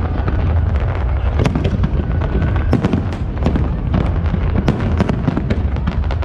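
Fireworks display: a dense run of sharp bangs and crackling reports, several a second, over a continuous low rumble of overlapping explosions.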